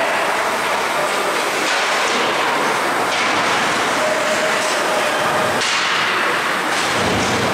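Ice hockey rink ambience: a steady wash of noise from skates carving and scraping the ice, with faint spectator chatter.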